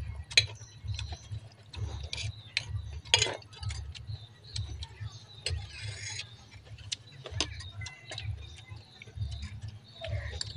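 Metal spoons clinking and scraping against ceramic bowls and plates during a meal, in scattered sharp clicks, over a low irregular thumping.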